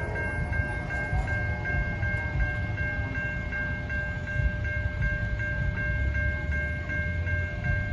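Railroad crossing bell ringing at a quick, even rhythm over the low rumble of a passing train. The tail of a train horn stops right at the start.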